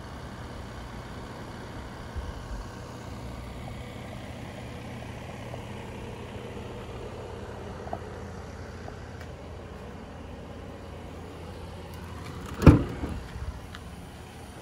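Steady low rumble, then about 13 seconds in a single loud clunk with a short ring: the VW T6 California's tailgate latch released by hand.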